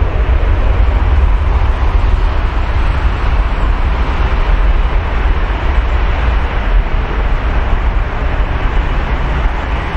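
Boeing 787 Dreamliner's jet engines at takeoff thrust as the airliner rolls down the runway: a loud, steady, deep rumble with a hiss above it.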